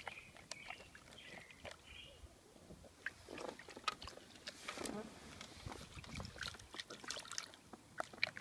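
Bulldog puppy pawing at the water in a shallow plastic tub: irregular small splashes and sloshing, with scattered sharp knocks and clicks against the tub.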